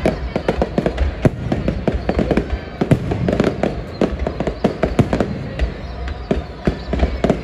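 High-altitude aerial firework shells bursting in quick succession: a dense run of sharp bangs and crackles over a steady low rumble.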